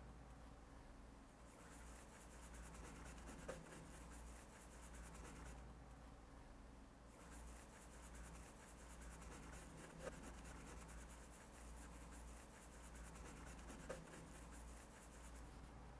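Faint scratching of a paintbrush scrubbing oil paint onto canvas in repeated strokes, with a pause of about a second and a half midway and three light ticks.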